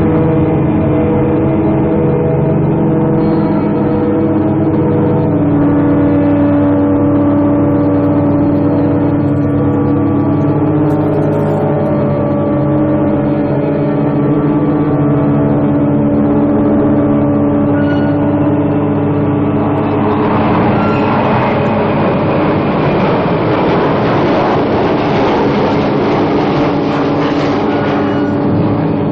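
Sustained droning chords that change pitch in steps every few seconds. About two-thirds of the way in, a rushing noise swells up over them and stays.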